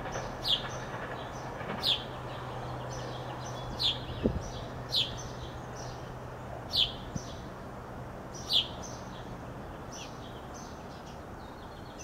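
A bird calling: a series of short, sharply falling high notes, one every second or two, over fainter chirps. Beneath them a low steady hum fades out about halfway through, and there is a single sharp click about four seconds in.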